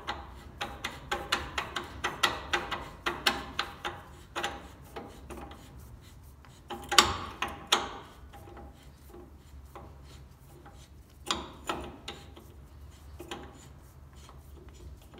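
A Willys CJ2A front hub and brake drum handled by hand: a quick run of light metal clicks, then the drum turned by hand, rubbing, with a few louder knocks.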